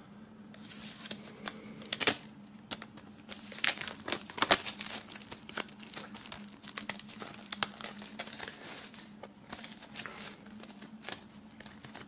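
Plastic shrink-wrap being cut with a knife and peeled off a cardboard DVD digisleeve: irregular crinkling and crackling snaps, loudest about two seconds and again about four and a half seconds in. A faint steady hum runs underneath.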